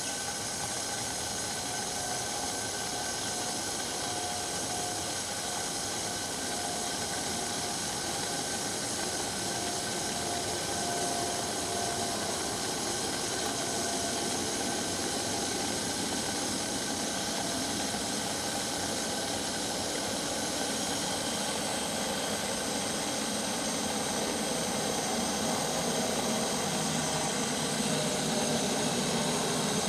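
Jetboil Flash gas stove's burner running with a steady hiss while it heats water.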